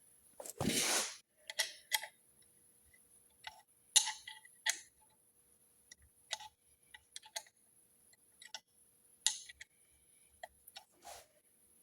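Irregular metallic clicks and clinks from hand tools and turbocharger parts being handled during disassembly. A longer scraping noise comes about half a second in, and sharper single knocks come around four seconds and nine seconds in.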